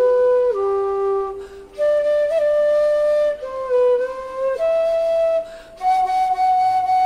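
G-bass bamboo bansuri flute played one held note at a time, the pitch stepping mostly upward with two short breaks for breath. The notes are checked one by one against a tuner to test the flute's tuning.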